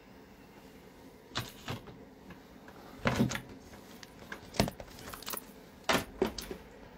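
Scattered knocks, clicks and short scrapes of objects being handled and moved about on a tabletop. The longest and loudest comes about three seconds in, and the rest are brief taps spread through.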